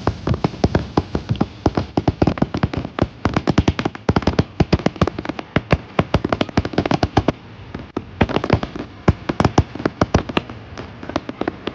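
Fireworks going off in quick succession, a dense run of bangs and crackling pops several times a second, with a short lull about eight seconds in.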